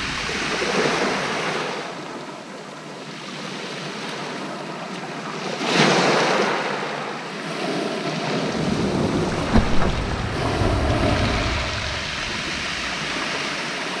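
Small waves breaking and washing up a shingle beach, swelling and ebbing, with the loudest surge about six seconds in. Wind buffets the microphone in the second half.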